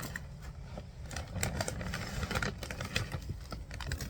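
Wind buffeting the microphone in a low, uneven rumble, with scattered light clicks and knocks of handling and movement.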